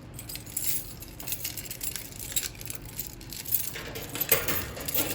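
Irregular light metallic clinks and clicks of handling, getting louder in the last second or so.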